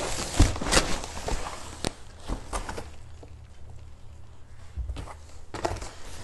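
Cardboard being handled: a loose box panel and a carton are shifted about, giving rustling, scraping and dull knocks. The knocks are busiest in the first two or three seconds and come again about five seconds in.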